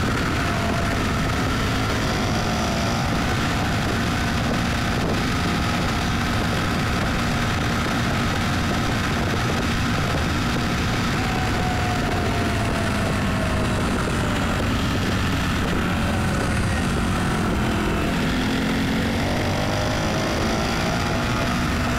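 A car driving: steady engine and road noise, with the engine note falling about halfway through and rising again near the end.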